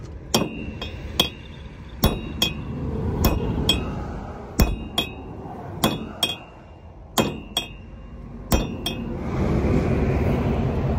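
Steel hammer striking the wheel studs of a truck wheel hub: about fourteen sharp, ringing metallic blows, mostly in pairs about a second apart. The blows stop about nine seconds in and a steady rushing noise takes over.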